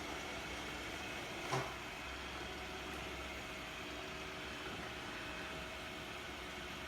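Robot vacuum cleaner running with a steady whir, with one short knock about a second and a half in.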